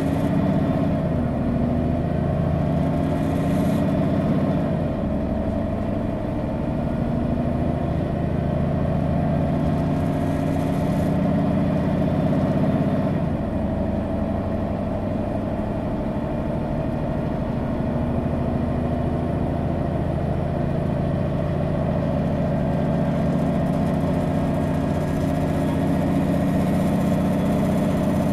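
Diesel engine of a Mercedes-Benz Citaro G articulated bus, a six-cylinder Daimler OM 457 hLA, running steadily as the bus drives. Its note changes pitch a few times, at about one, four and a half, and thirteen seconds in.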